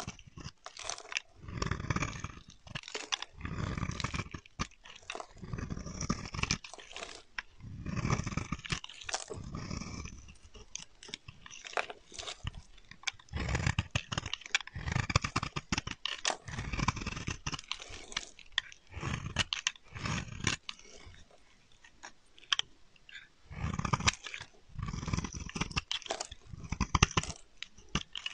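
A snap-off utility knife blade shaving curls off a dry bar of soap, scraping with each stroke. The strokes come about one every one to two seconds, with a short pause about two-thirds of the way through.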